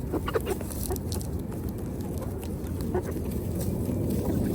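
Chickens clucking softly over a steady low background noise.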